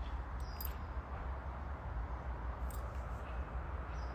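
Steady low rumble and hiss of background noise on a phone microphone, with a few faint clicks.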